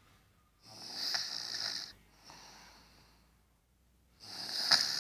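A sleeping baby snoring: two loud, raspy snoring breaths about three and a half seconds apart, each followed by a softer breath.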